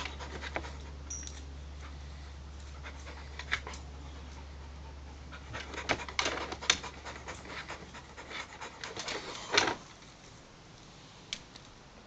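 Clumber spaniel panting in uneven clusters of short breaths, most of them in the second half, stopping a couple of seconds before the end.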